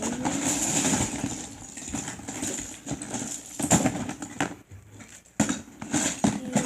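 Small plastic Lego pieces being rummaged through and handled, rattling, with several sharp clicks of pieces knocking together.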